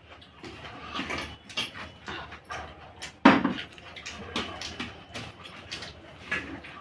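Close eating sounds: people chewing and smacking on rice mixed with boiled egg and gravy, eaten by hand, in short irregular mouth noises, with one louder burst about three seconds in.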